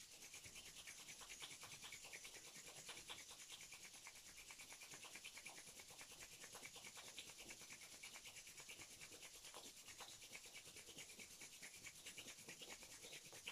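Two palms rubbed briskly together to warm the hands: faint, rapid, even rubbing of skin on skin, several strokes a second.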